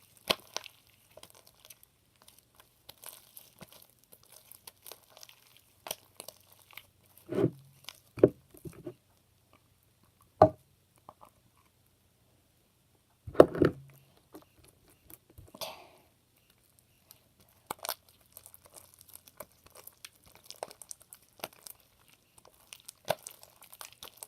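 Hands kneading and stretching sticky, half-formed clear slime: scattered faint wet crackles and clicks, with a few louder thumps about 7, 8, 10 and 13 seconds in.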